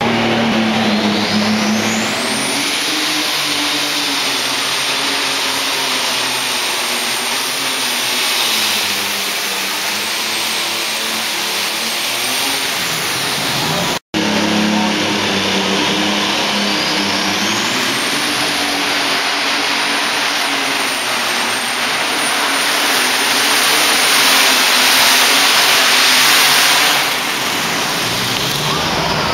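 Alcohol-burning pulling tractor engines at full throttle, loud and steady, with a high whine that rises over about two seconds and then holds. The sound breaks off for an instant halfway, and a second tractor's run starts the same way.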